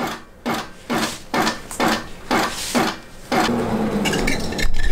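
Longarm quilting machine in basting mode, its needle knocking through the quilt about twice a second as single, widely spaced basting stitches are taken; about three seconds in it gives way to a steadier continuous machine sound.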